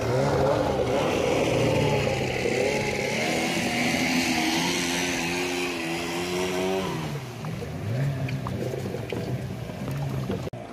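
Outboard motors of wooden river longboats running under way, their pitch wavering and dipping briefly about two-thirds of the way through before picking up again, with water rushing and splashing along the hull.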